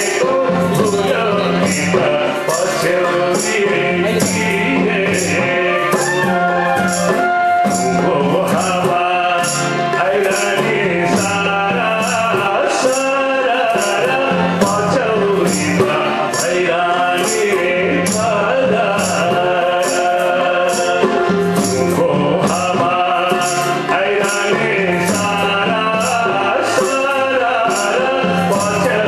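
A man singing a Nepali folk song into a microphone, accompanied by a harmonium's sustained reedy chords and a steady jingling percussion beat of about two strokes a second.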